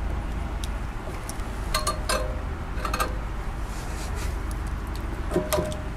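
Scattered light metallic clicks and clinks of pliers against the rear brake caliper and its spring as the spring is worked into place. There are half a dozen separate clinks, some ringing briefly, over a low steady hum.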